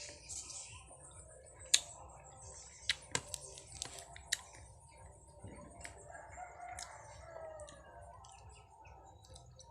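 Sharp crunching clicks of bites into crunchy mango during the first half, the loudest about two seconds in. A rooster crows in the background from about halfway through.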